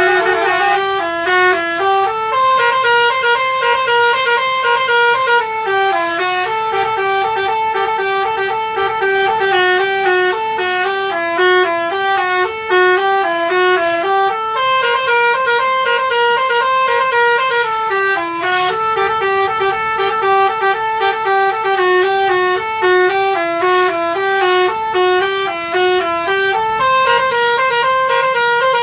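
Basuri telolet horn playing a tune: a continuous melody of short, stepped horn notes, the same phrase coming round about every twelve seconds.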